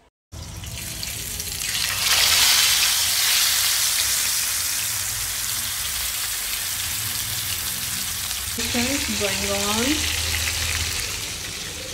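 Whole masala-coated fish frying in hot oil in a pan. The sizzle starts sharply as the fish goes in, swells over the first two seconds, then holds steady.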